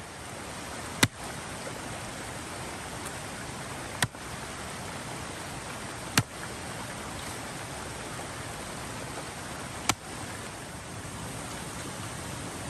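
Steady rushing of a forest creek, broken by four sharp clicks spaced irregularly a few seconds apart.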